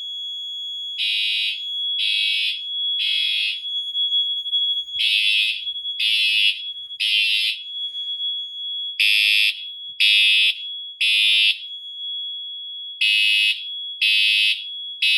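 Siemens horn-strobe and Wheelock mini horn fire alarms sounding together after a pull station is pulled. A loud horn sounds in the temporal-3 evacuation pattern, three short blasts about a second apart and then a pause, over a steady high continuous tone.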